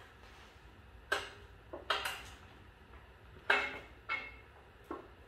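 Irregular metal clanks, about six of them, each ringing briefly, from the winch worm-gear crank of an engine stand being turned under a heavy off-centre load.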